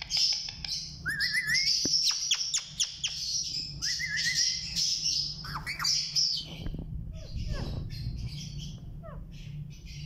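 Alexandrine parakeets chattering: rapid high squawks and chirps with quick rising whistles and sharp clicks, thinning to scattered short calls after about six seconds.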